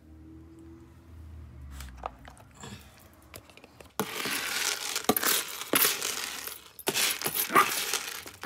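A metal spoon scooping dry dog kibble in a plastic storage tub, the pellets rattling and scraping. A few faint clicks come first, and the loud rattling starts about halfway through.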